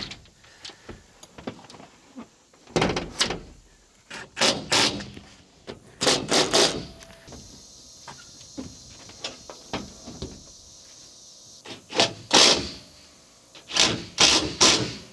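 Clusters of sharp clunks and knocks, two or three at a time every few seconds, with some scraping: solar panel frames and mounting hardware being handled and set onto metal roof rails.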